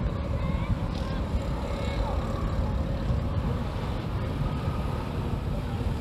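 Outdoor street ambience: a steady low rumble of nearby motorbike and car traffic, mixed with wind buffeting the microphone.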